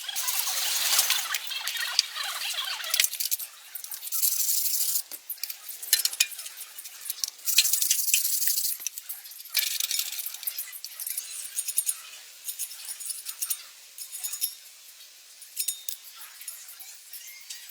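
Metal tools and parts clinking and tapping during axle repair work, with several hissing bursts of a second or two, the longest at the start and around eight seconds in.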